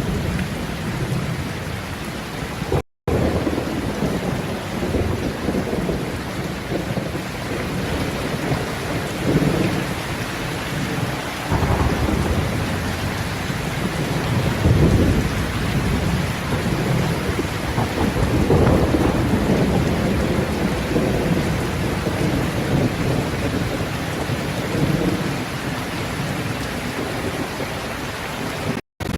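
Heavy rain falling steadily, with low rolling thunder that swells and fades several times. The sound cuts out briefly about three seconds in and again just before the end.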